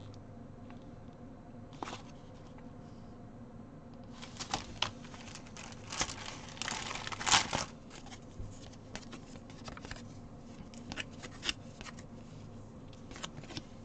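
Crinkling and rustling of a cross-stitch kit's clear plastic packaging and paper as the floss bundles are pulled out. The crackles come in scattered bursts and are busiest and loudest around the middle.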